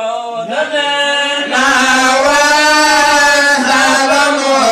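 Devotional chanting in men's voices: a slow melodic line of long, drawn-out notes that swells louder about one and a half seconds in.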